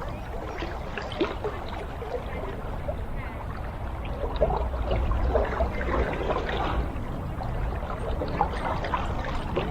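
Creek water running and trickling steadily.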